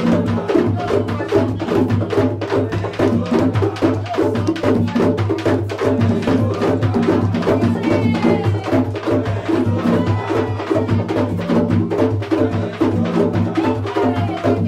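Tambor de crioula drumming: hand drums beaten in a fast, steady rhythm, with a dry wooden clicking over it that is typical of matracas struck on the drum's body.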